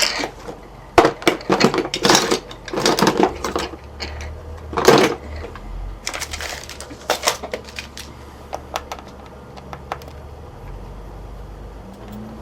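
Hand tools clattering and knocking against each other and the work surface while someone rummages for a screwdriver. There is a strong knock about five seconds in, then lighter scattered ticks.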